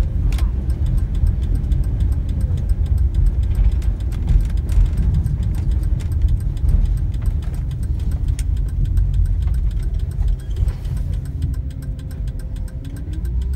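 Steady low rumble of a box truck's engine and tyres, heard from inside the cab while driving. It eases slightly near the end as the truck slows.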